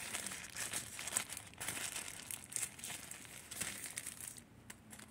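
White tissue wrapping paper rustling and crinkling in irregular crackles as it is handled and pulled aside by hand; it quietens near the end.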